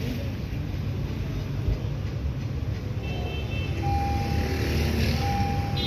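Steady low background rumble with a few faint, brief steady tones in the second half.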